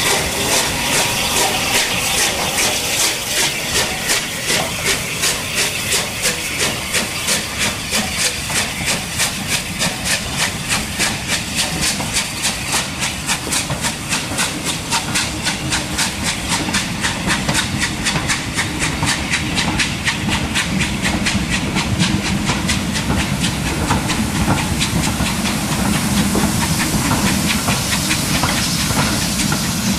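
Steam locomotive pulling a train away, its exhaust beats quickening steadily over a loud hiss of steam. Later the beat blurs into the running of the passing coaches.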